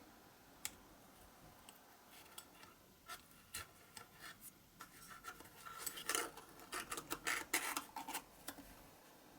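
A string of small clicks, taps and short scrapes, like small hard parts being handled and rubbed together, sparse at first and busiest in the middle to late part.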